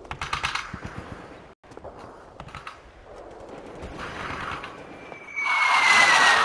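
War-film battle sound effects: short bursts of machine-gun fire, then near the end a much louder blast of shelling with a falling whistle.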